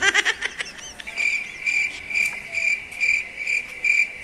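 Cricket chirping in evenly spaced pulses, about two a second, starting about a second in after a brief falling swoop.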